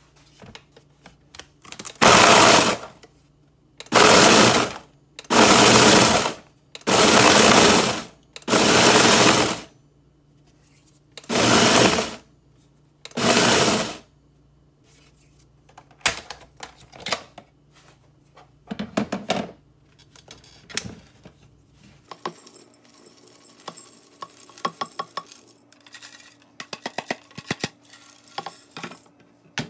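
A countertop blender pulsed seven times in bursts of about a second each, chopping whole Oreo cookies into crumbs. Afterwards come scattered taps and a rattling of dry crumbs as the blender jar is knocked and emptied.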